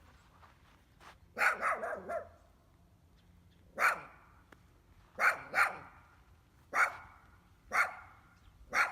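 Dog barking repeatedly: a quick run of barks about a second and a half in, then single and paired barks roughly once a second.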